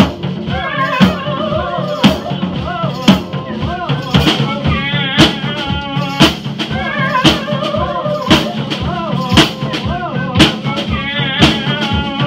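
Ludwig drum kit played along with a song that has a singing voice, with a heavy accented hit about once a second over a steady beat.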